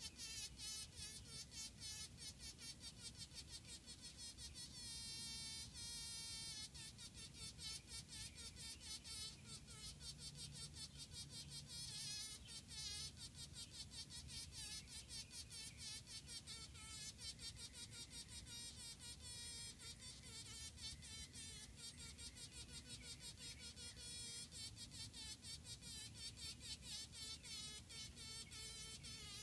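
Honey bee buzzing in rapid, uneven bursts, muffled, as it struggles trapped in a spider's web; the pitch wavers at times. This is the distress buzzing of a bee fighting off a spider's attack.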